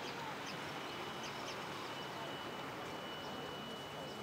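Outdoor ambience: a steady hiss of open air with a few faint, short bird chirps.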